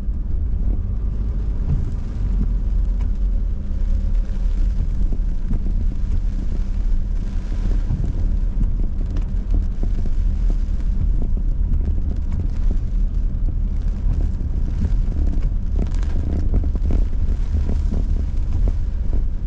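Car interior while driving slowly: a steady low rumble of engine and road noise heard from inside the cabin.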